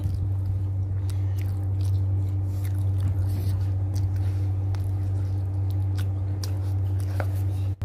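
Close-miked mouth sounds of eating saucy fried chicken by hand: chewing and biting with small wet clicks, over a steady low electrical hum. The sound drops out briefly near the end.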